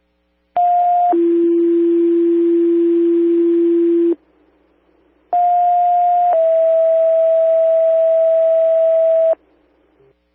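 Two sets of two-tone sequential pager alert tones on a fire dispatch radio channel, over radio hiss. In each set a higher tone of about a second steps down to a lower tone held about three seconds, the first set dropping much further than the second. The tones set off the fire department's pagers ahead of a dispatch.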